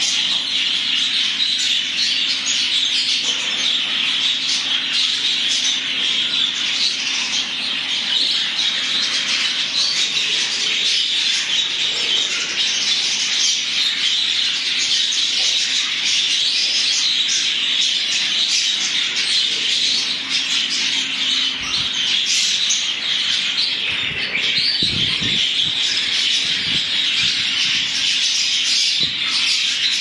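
A flock of budgerigars chattering, with many birds warbling and chirping at once in a dense, unbroken stream.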